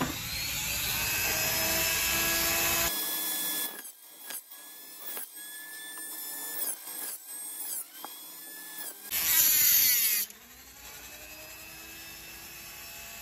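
High-speed rotary tool with a thin cutting disc spinning up with a rising whine, then cutting a slot into a toy gun's frame in a series of short passes, its pitch dipping under load and recovering between them. A louder stretch of cutting about nine seconds in.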